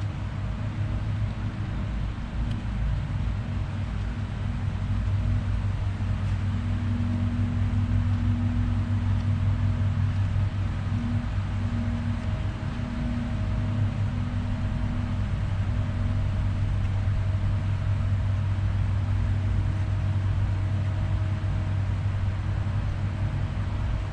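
Small pancake air compressor running steadily with a low hum while it pushes air into the sprinkler lines to blow the water out for winterizing.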